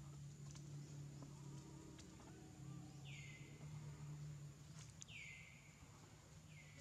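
Three short animal calls, each falling in pitch, about two seconds apart, over a faint low steady hum.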